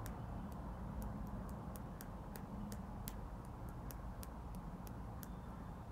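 Light, irregular clicking, about three sharp clicks a second, that stops near the end, over a steady low hum of room noise.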